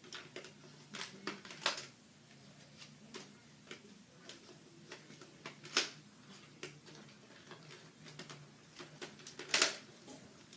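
Irregular light clicks and taps from a Nerf blaster and its darts being handled, with two louder clicks about six and nine and a half seconds in, over a faint low hum.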